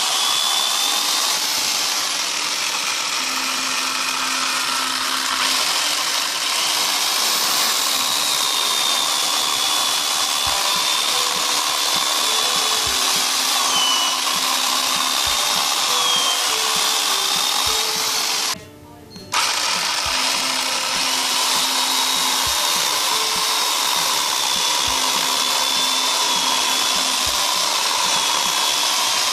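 A 710-watt CRAFIX electric chainsaw cuts through a log, its motor running with a steady high whine while the chain chews wood and throws sawdust. The sound cuts out for under a second about two-thirds of the way through.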